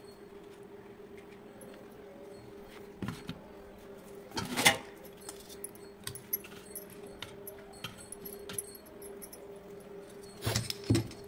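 Light metallic clinks and taps of a stainless steel plate and utensils as fried murrel fish slices are served onto a banana leaf. The loudest clink comes about four and a half seconds in, and a cluster comes near the end, over a faint steady hum.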